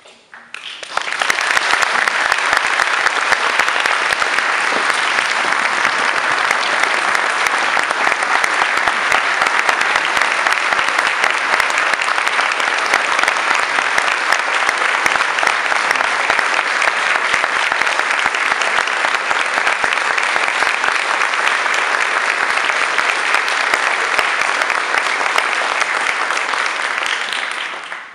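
A large audience applauding loudly and steadily. The applause swells in about a second after the speech ends, holds for over twenty seconds, and dies away near the end.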